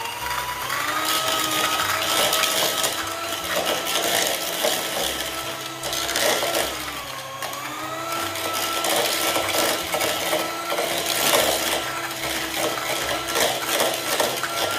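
Electric hand mixer running, its beaters creaming butter and sugar in a bowl. The motor gives a steady whine that sags briefly in pitch about halfway through and picks up again, over a constant clatter of the beaters against the bowl.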